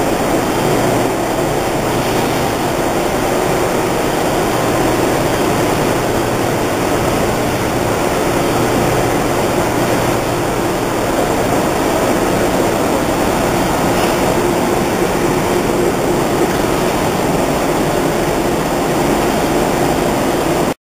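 Six-color screen printing press running: a steady, loud machine noise with a low hum. It cuts off suddenly near the end.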